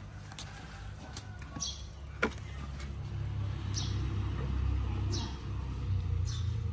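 A low rumble, like a motor vehicle going by, swelling through the middle, under a short high falling chirp that repeats about every second and a half, like a small bird calling. A sharp click about two seconds in.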